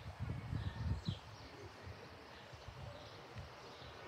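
Small birds chirping in short calls over a faint, gusty wind rumble on the microphone. The wind is strongest in the first second, then drops away.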